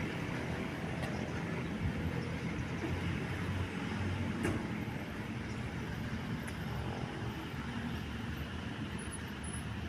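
Steady road traffic noise from vehicles running past.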